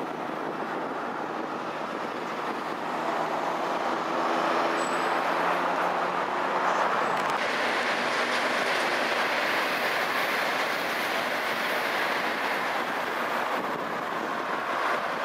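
Shinkansen bullet train passing at speed on an elevated line: a rushing hiss that builds about seven seconds in and lasts several seconds, mixed with the engine of a bus and other road traffic passing close by.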